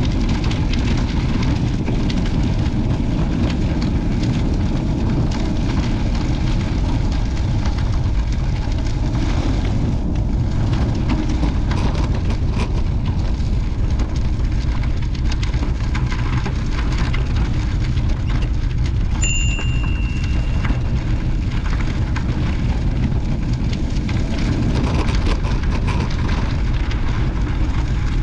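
Wind buffeting the microphone of a moving camera: a loud, steady low rumble with a rough hiss above it. A short high-pitched tone sounds once about two-thirds of the way through.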